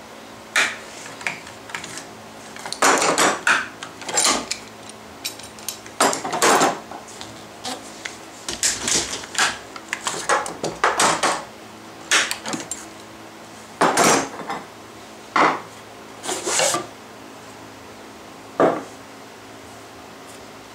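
Irregular clatter of metal rapid-action clamps being released and handled, with wooden jig pieces knocked and shifted as the mallet barrel is freed from the routing jig: a scattered series of sharp clacks and short rattles.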